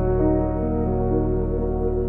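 Slow ambient background music: soft held notes that change every half second or so over a steady low drone.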